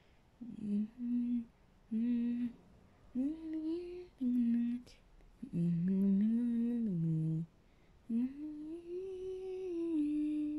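A person humming a slow tune as menu music, in several held notes with short pauses between them; the longest phrase comes near the end.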